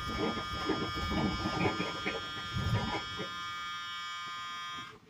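Starter cranking the 1982 Ford F-100's 3.8 L V6 without it catching, over a steady electric warning buzzer. The cranking stops about three seconds in, and the buzzer cuts off near the end.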